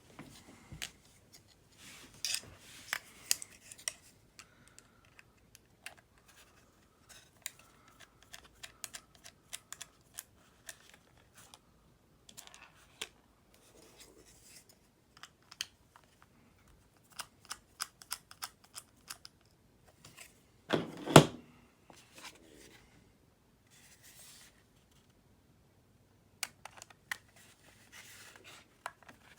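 Small clicks, taps and light scrapes of hands and a small screwdriver working on an open MacBook Pro while a replacement SSD is fitted, with one louder knock about two-thirds of the way through.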